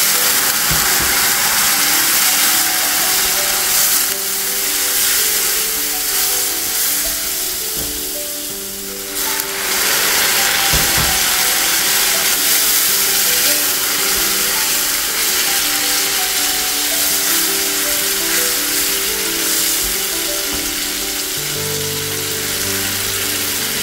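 Ghee-roasted wheat semolina in a hot pan sizzling loudly as water is poured in a little at a time and stirred with a silicone spatula; the sizzle eases a moment and surges again about nine seconds in as more water goes in. Background music with a simple melody plays underneath.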